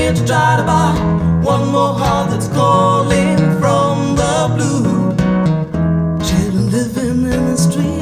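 Recorded song with guitar and a steady, strong bass line, played loud through a pair of Polk Audio Reserve R700 floor-standing speakers and picked up in the listening room.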